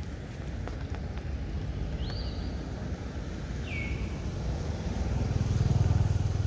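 Low rumble of a passing motor vehicle, swelling to its loudest near the end. Two short, high calls sound over it, about two seconds in and again just before four seconds.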